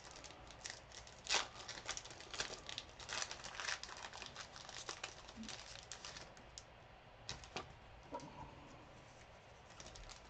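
Foil trading-card pack wrappers crinkling and tearing as packs are opened by hand, in a dense run of short crackles that thins out about six and a half seconds in.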